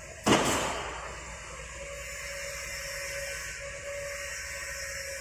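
Steady machine hiss with a faint steady hum from running workshop equipment. About a third of a second in, a short loud rush of noise fades away within about a second.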